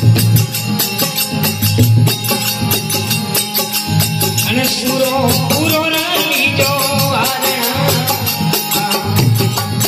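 Rajasthani folk bhajan music: a steady fast beat of jingling hand percussion over a low drum, with a voice singing a melodic line from about halfway through.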